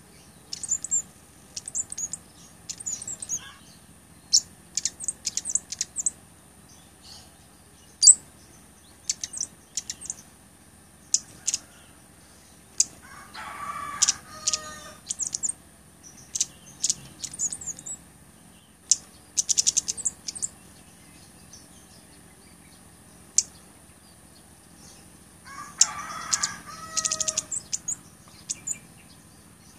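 Caged cabai gunung flowerpecker giving short, high-pitched chipping notes in quick clusters. Twice, a longer, lower call from another bird sounds behind it.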